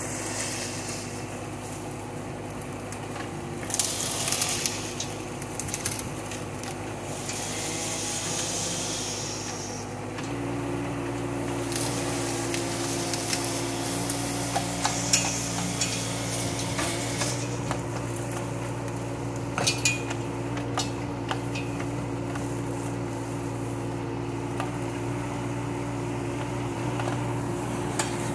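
Kubota K008 mini excavator's diesel engine running steadily while its bucket tears out bushes; the engine note steps up and gets louder about ten seconds in as the hydraulics are worked harder. Over it come rustling and cracking of branches and scattered sharp clicks and clanks from the bucket and boom.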